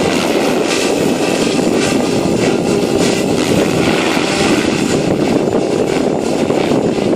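ALZRC Devil 505 electric RC helicopter in flight, its rotor noise steady and mixed with heavy wind buffeting on the microphone.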